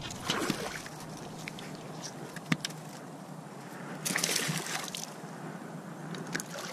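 Water sloshing and splashing beside a canoe as a hooked chain pickerel is brought in, with scattered knocks and clicks; a louder splashing stretch comes about four seconds in.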